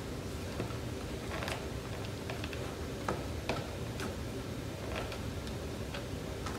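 Spatula stirring thick slime in a plastic bowl: irregular short clicks and taps, roughly one or two a second, over a steady low background hum.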